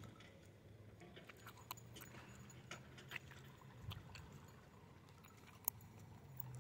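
Near silence: a faint steady low hum with scattered light clicks and one sharper tick near the end.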